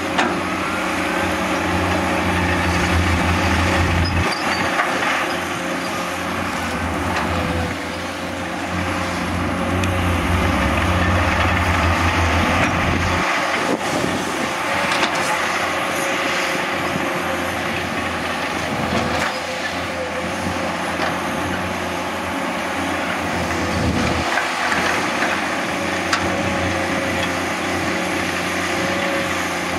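Diesel engines of Komatsu PC210 hydraulic excavators running under load as they dig. A steady mechanical drone, whose deep low hum drops away about thirteen seconds in.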